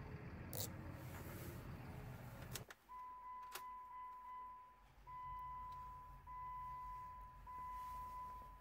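Handling noise and clicks at the camera. Then, after a cut, the Jeep Compass's electronic warning chime sounds as a steady beep repeated about once every 1.2 s with the ignition on, over a faint low hum, with a single click shortly after the chime starts.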